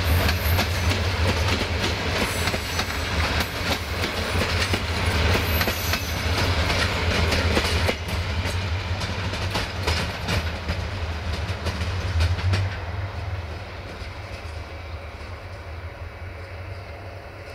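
Passenger carriages rolling past behind a diesel locomotive, their wheels clicking over the rail joints above a steady low rumble. The sound fades away from about twelve or thirteen seconds in as the train draws off.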